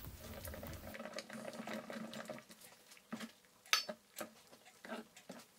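Faint, wet sounds of a ladle stirring and pressing crushed pomegranate pulp through a stainless-steel mesh strainer to separate the juice from the seeds. There are a few light clicks of the ladle on the metal, the clearest nearly four seconds in.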